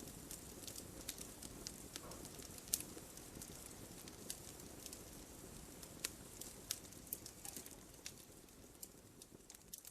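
Campfire crackling: irregular sharp pops and snaps over a low steady rustle of burning wood, slowly fading down near the end.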